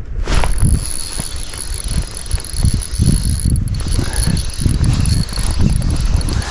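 Fishing reel being cranked on a retrieve: a steady mechanical whir that starts about a third of a second in, over a low rumble of wind on the microphone.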